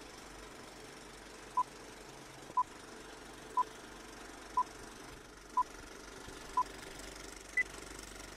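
Film-leader countdown beeps: six short beeps at one pitch, one a second, then a last higher beep, over a steady projector-like rattle and hiss. Everything cuts off suddenly at the end.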